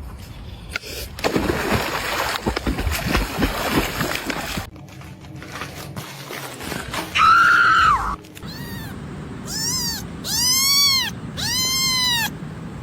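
A cat meowing, a run of about five drawn-out calls that rise and fall in pitch in the second half, after a single louder call. The first few seconds hold a stretch of scuffling noise.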